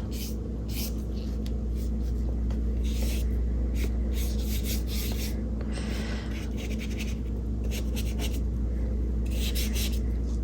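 Paintbrush stroking and scrubbing acrylic paint onto gesso-primed mixed media paper: a run of short, irregular scratchy strokes over a steady low hum.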